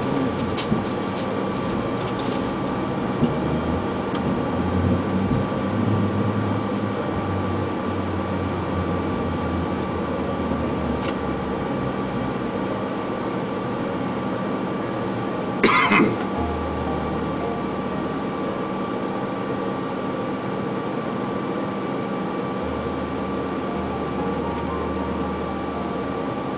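Steady airliner cockpit noise: engines and air conditioning running, with a thin steady whine. A short crackling burst comes about sixteen seconds in.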